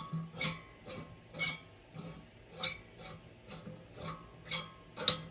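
Light metallic clinks, about two a second with some ringing briefly, as a brass fitting is worked loose from the copper condenser coil inside a stainless steel pot.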